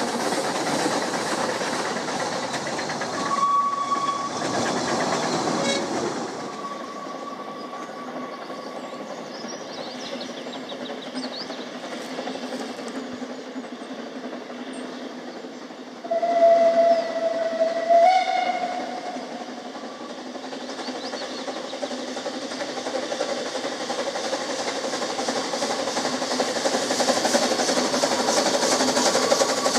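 Ffestiniog Railway Double Fairlie steam locomotive Earl of Merioneth: its steam whistle is blown in two steady notes a little past halfway, the second slightly higher. Then the engine's exhaust and steam hiss grow louder as it approaches, hauling its train.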